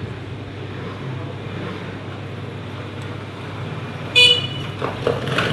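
A short, high-pitched toot like a horn about four seconds in, over a steady low background rumble, followed by a few sharp clicks.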